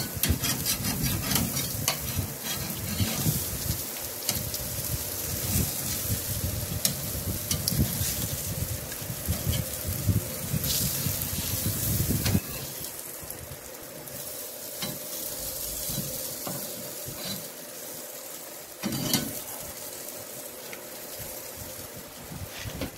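Salmon steaks sizzling on a charcoal grill's grate, with crackling and a spatula scraping and tapping on the grate. About twelve seconds in, the sound drops quieter, and a single louder knock comes later.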